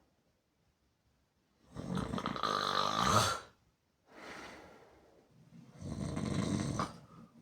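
A person snoring loudly with mouth open, in a steady breathing cycle: after a short pause, two loud snores about four seconds apart, with a quieter breath between them.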